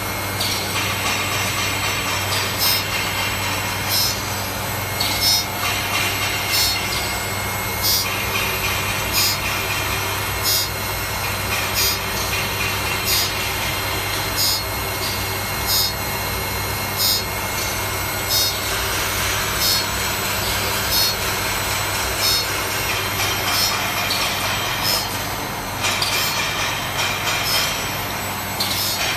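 CNC saw-blade sharpening machine running with a steady hum while its CBN grinding wheel grinds an HSS saw blade tooth by tooth: a short, sharp grinding stroke comes about every 1.3 seconds.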